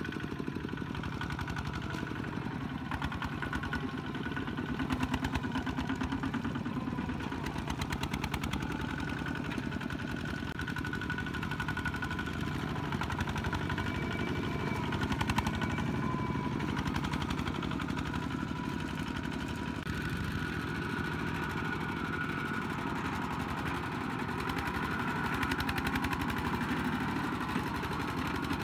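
Single-cylinder diesel engines of Kubota two-wheel walking tractors running steadily while pulling loaded trailers, a continuous even chugging.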